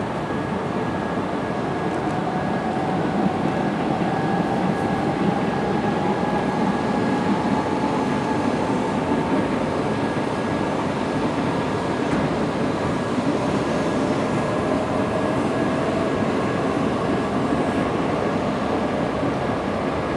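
E6 series Super Komachi shinkansen standing at the platform with its onboard equipment running: a steady hum and hiss, with a constant high tone and a whine that slowly rises in pitch.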